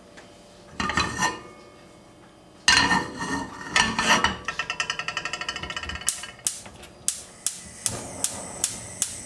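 Gas hob's spark igniter clicking as a burner is lit: a fast run of clicks, then steady single clicks about two to three a second. Before that come two loud knocks of handling.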